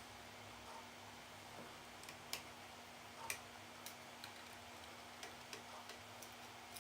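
Faint, irregular light clicks and taps of small tools and parts being handled on an opened PowerBook G4 12-inch laptop, over a faint steady hum.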